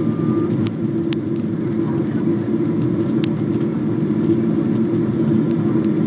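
Steady roar of an airliner's jet engines and rushing air, heard from inside the passenger cabin on the approach to landing, with a few faint clicks.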